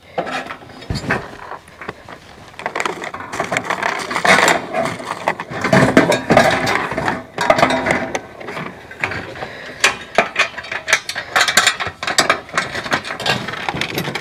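Irregular metallic clattering, clicking and light knocks as corrugated steel raised-bed panels and corner pieces are handled and bolted together by hand, busier from about four seconds in.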